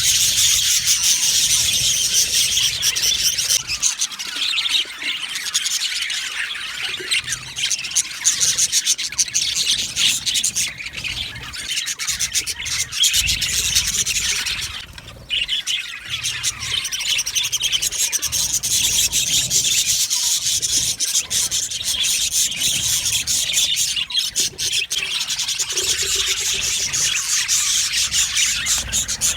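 A flock of budgerigars chattering and chirping together in a dense, continuous high-pitched warble, thinning briefly about halfway through.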